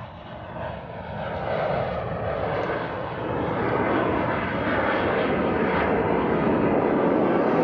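Display jet flying overhead: a steady rushing engine noise that grows louder over the first few seconds and then holds.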